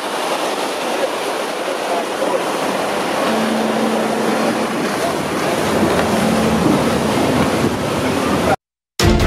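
Wind and rushing water around a moving boat, with the drone of a jet ski engine passing close a few seconds in. The sound cuts off abruptly near the end, and music starts.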